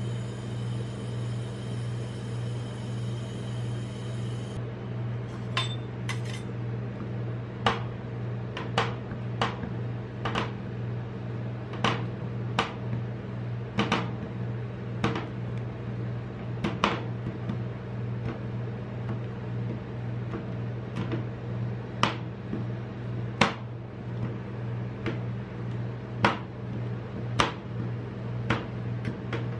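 Two steel spatulas chopping a Cadbury Dairy Milk chocolate bar on a stainless-steel rolled-ice-cream cold plate: sharp metallic taps about once a second, starting about five seconds in. Under them runs the steady hum of the cold plate's refrigeration unit.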